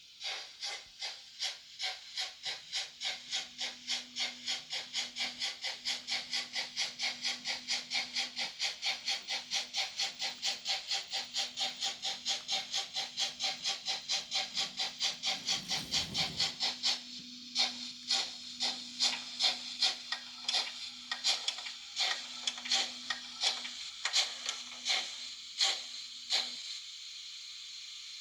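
Digital steam sound from the Märklin 37160 BR 94.5 model locomotive's mfx sound decoder: exhaust chuffs that quicken to about four a second, then slow and turn uneven before stopping about 26 seconds in, leaving a steady hiss. A steady hum runs under the chuffing.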